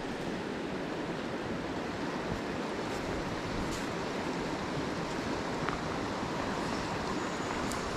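Shallow river water running over a stony riffle: a steady rush of flowing water.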